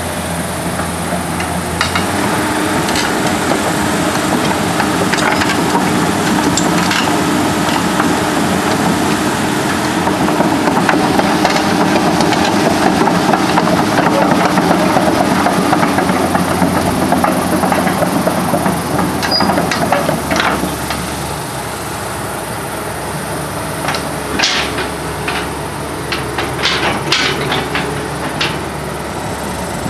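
Komatsu PC200LC-7 excavator's turbo diesel engine running steadily. Its level and pitch rise about two seconds in and settle back around twenty seconds. A cluster of sharp knocks comes near the end.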